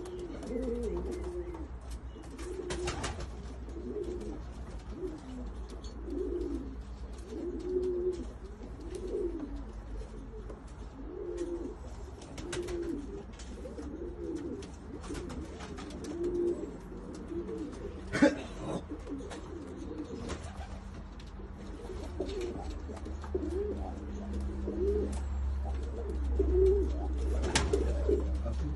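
Serbian highflyer pigeons cooing over and over, low rolling coos about one a second, with a few sharp taps here and there.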